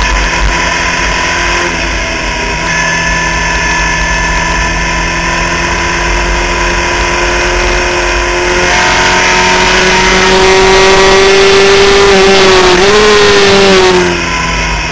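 In-car sound of a Skip Barber open-wheel race car's engine under full throttle, its pitch climbing steadily as the car accelerates. It gets louder about two-thirds of the way through, dips briefly in pitch and recovers, then falls away suddenly near the end as the throttle is lifted.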